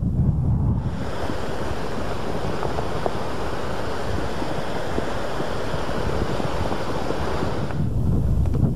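Wind buffeting an outdoor microphone on an open lava field: a steady rushing noise, heaviest at the low end, with a brighter hiss joining about a second in and dropping away near the end, and a few faint ticks.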